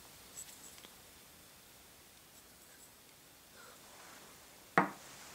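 Quiet handling of a small wooden toy railway piece: a few faint clicks about half a second in, then one short knock near the end as it is set down.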